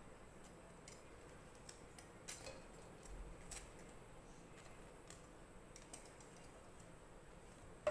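A few faint metallic clicks of stainless steel tongs against a wire mesh strainer as fried taro cakes are picked over in it, the clearest about two seconds in.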